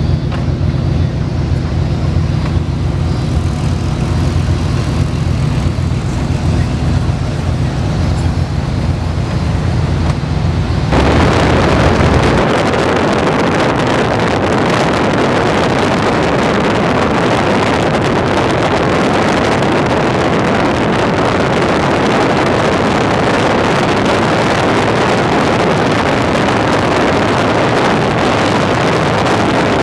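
A vehicle engine drones steadily at a constant low pitch. About eleven seconds in, the sound switches abruptly to a loud, even rushing noise that lasts to the end.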